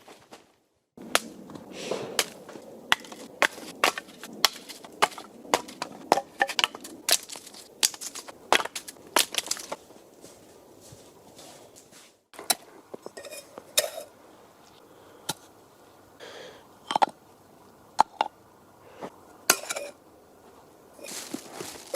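A rapid, irregular run of sharp cracks and knocks, dense for the first half and sparser after, broken by two brief drops to silence.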